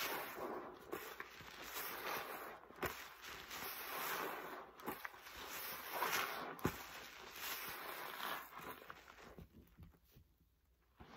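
A sponge full of paste and thick suds being squeezed by gloved hands in rinse water: repeated wet squelching with crackling foam, dying down about nine seconds in.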